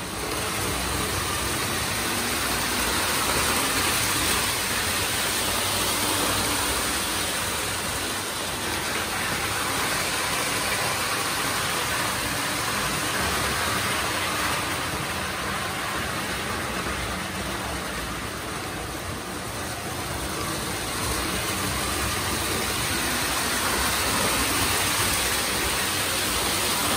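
Postwar Lionel O-gauge NW2 switcher train running on three-rail tinplate track: a steady rumble and whir of motor and wheels that swells and eases as the train comes nearer and moves away.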